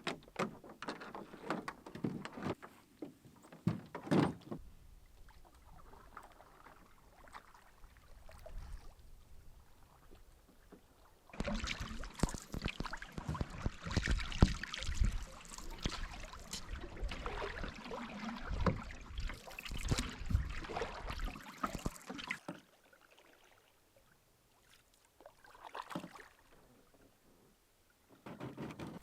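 A canoe being paddled or handled: scattered knocks against the hull at first, then a longer, louder stretch of knocking and water noise through the middle, quieter again near the end.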